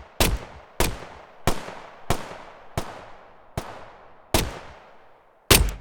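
Sound-design gunshots from a 9mm pistol preset, fired as eight single shots at an uneven pace of about one every 0.6 to 1.2 s. Each shot has a fading reverberant tail, some short and dry, others long, as the perspective shifts between close and far.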